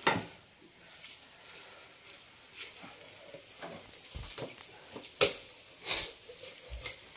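A large knife chopping and cutting a giant trevally on a wooden block: a few scattered knocks of the blade on the wood, the sharpest two about five and six seconds in.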